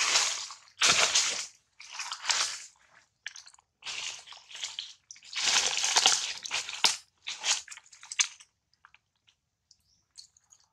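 Crunching and rustling in irregular bursts, some lasting a second or two, from macaques handling dry leaves and dirt on the ground, thinning to a few scattered crackles near the end.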